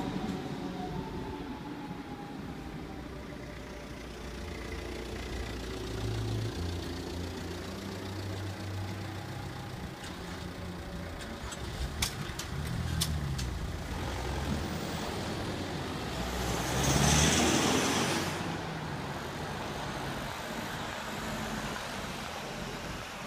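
Road traffic at a level crossing: car engines idling and then pulling away, with a few sharp clicks about halfway through and one car passing close about three quarters of the way in.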